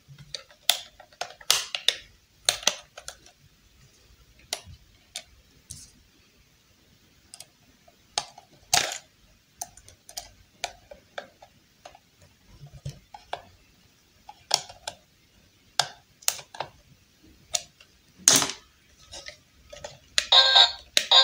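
Irregular clicks and taps of a plastic toy iron's casing being handled, a knife tip worked in its screw hole and the shell prised apart. Music comes in near the end.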